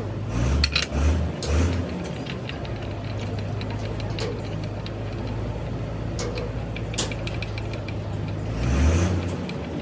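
A motor running steadily with a low hum, a few sharp knocks in the first two seconds and a heavier thump near the end.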